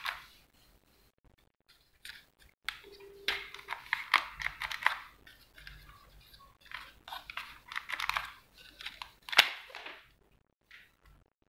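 Clicking and plastic rattling as clips are worked onto the deep-set battery terminals of a Black Tiger cordless drill. It comes in several bursts, with a sharp click near the end.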